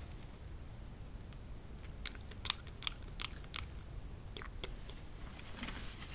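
Close-up ASMR mouth sounds: a cluster of sharp, wet clicks and smacks like biting or chewing, mostly from about two to four seconds in, over a faint steady low hum.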